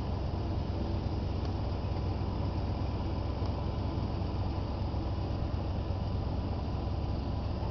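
1985 Dodge truck's engine idling steadily.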